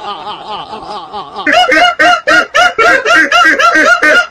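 A rapid run of short, pitched vocal-like sounds, about four or five a second, each rising then falling in pitch. They get much louder about a second and a half in.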